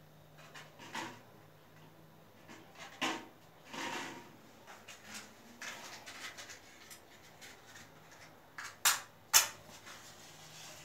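Light knocks and scrapes of metal puja vessels and a plate being handled, then a matchstick struck twice in quick succession on its box near the end, lighting it.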